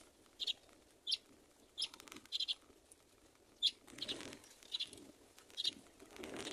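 Baby myna in the nest giving short, high chirps, singly or in quick pairs, about once or twice a second: the begging calls of a nestling waiting to be fed. Two longer bursts of rustling come about four seconds in and near the end.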